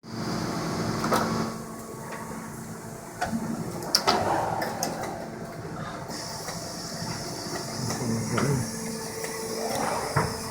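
Automatic ultrasonic plastic-welding machine running through its cycle: a steady hum from the machine with sharp mechanical clicks and knocks every second or two, and short swelling mechanical sounds near the end.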